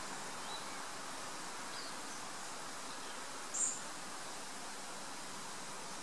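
Steady outdoor hiss of natural ambience, with a few faint high chirps and one brief, louder high chirp about three and a half seconds in.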